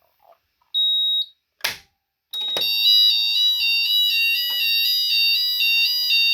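A short high electronic beep and a sharp click as a manual fire alarm call point is activated. About two and a half seconds in, electronic fire alarm sounders start: a loud, continuous alarm of several tones switching up and down in quick steps.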